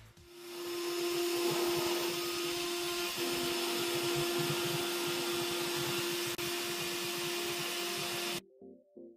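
A 775 DC motor spindle on a homemade CNC machine running at a steady speed: a constant pitched hum over a hiss. It fades in at the start and cuts off abruptly near the end.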